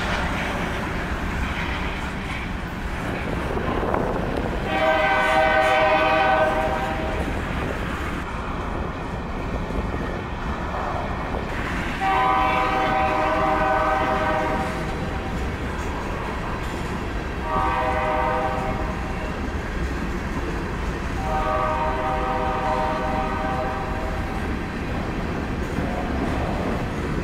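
Diesel freight locomotive air horn sounding two long blasts, one short and one long: the standard signal for a grade crossing ahead. Under it runs the steady rumble and clickety-clack of a long string of covered hopper cars rolling past.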